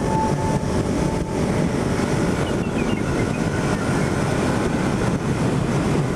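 Kawasaki Z300 parallel-twin motorcycle on the move: steady engine and road noise under heavy wind rush on the microphone.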